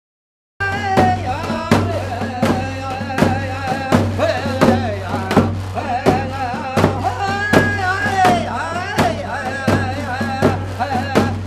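Music with a steady beat, about one and a half beats a second, under a wavering melody; it starts abruptly just over half a second in, out of dead silence.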